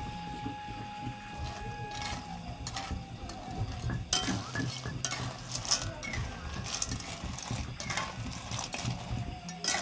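A utensil stirring food in a cooking pot, clinking and scraping against the metal in a run of sharp clicks from about four seconds in, over a steady low hum.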